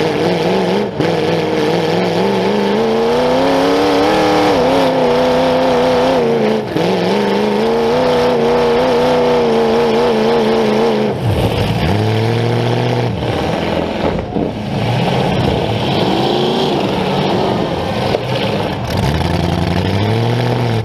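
Demolition derby car engine running loud through open exhaust pipes poking up through the hood, revving up and down over and over as it works in the arena.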